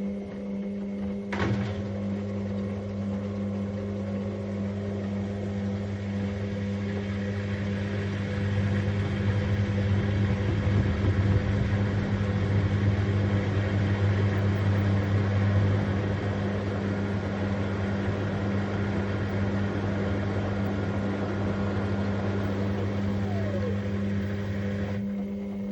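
Beko WTK84011W washing machine in a suds lock: a steady machine hum with a sharp click about a second in, followed by a loud rushing noise that stops shortly before the end, as the machine deals with excess foam.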